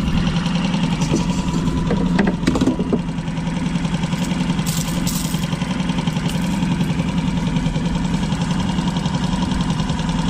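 A boat engine running steadily at idle, a low even drone, with a few short knocks about two to three seconds in.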